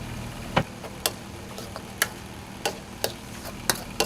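Sharp metallic knocks, about seven at irregular spacing, of a metal spatula striking a wok at a street-food noodle stall, over a steady low hum.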